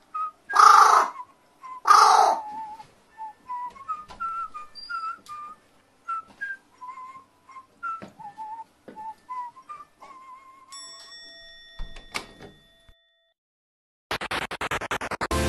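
Two loud, harsh caws from a carrion crow about a second and a half apart, then a tune whistled in short sliding notes. Near the end, electronic music begins.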